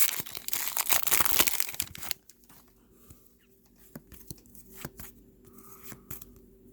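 A trading-card pack wrapper being torn open and crinkled for about two seconds, then quiet, with a few soft clicks of cards being handled.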